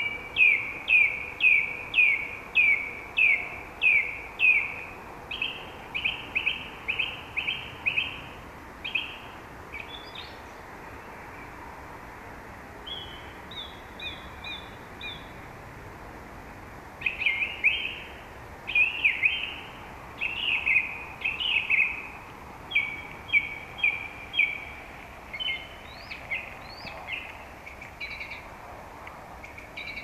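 Song thrush singing: loud, clear, whistled phrases, each repeated several times in quick succession before the bird switches to a new one. About a third of the way in it goes briefly quieter with a few higher phrases, then resumes at full strength.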